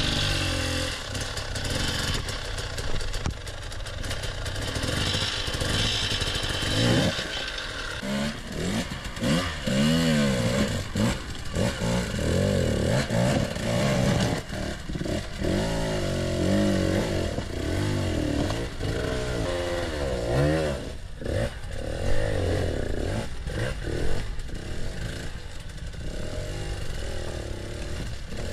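Husqvarna enduro dirt bike engine revving up and down in short repeated bursts as it crawls over boulders, with clatter and knocks from the tyres and rocks.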